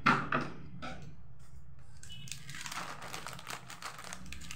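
Crinkling of a plastic snack packet being handled, then a run of quick, crisp snips near the end as scissors cut the packet open.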